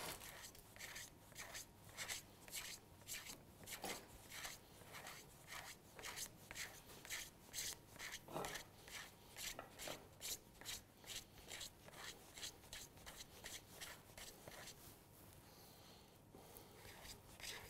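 Tip of an apple peeler scraping shavings off a slab of chocolate: faint, quick rasping strokes, about three a second, with a short pause near the end.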